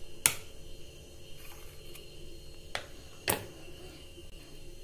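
Three sharp clicks, the first and last loud and the middle one fainter, over faint steady room noise.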